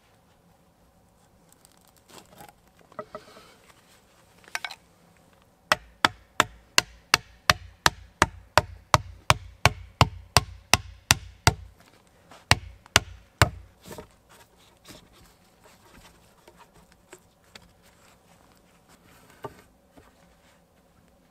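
A tool striking wood in a fast, even series of sharp knocks, about three a second, for some six seconds, then a short pause and three more strikes.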